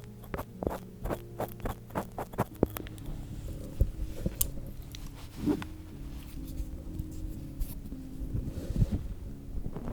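Ear-cleaning sounds on a binaural microphone's ear: an ear pick clicking quickly, about three or four clicks a second, for the first few seconds, then slower scratching and rustling scrapes.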